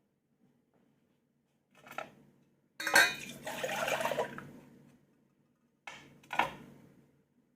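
Kitchen dishes and utensils being handled: a short knock about two seconds in, a louder clatter with a couple of seconds of liquid sound after it, and another knock near the end.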